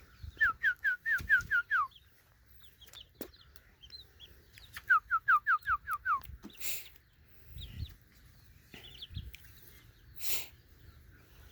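Chickens clucking: two runs of about seven quick, short, falling calls, one right at the start and one about five seconds in, with scattered softer clucks between.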